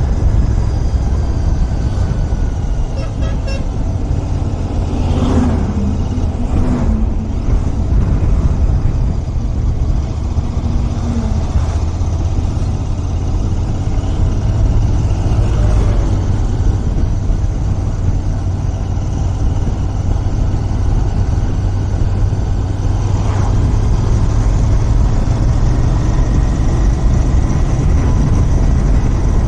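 Royal Enfield Continental GT 650's 648 cc parallel-twin on its stock exhaust, running steadily while riding at road speed, heard as a continuous low rumble. A short pitched tone comes about five seconds in.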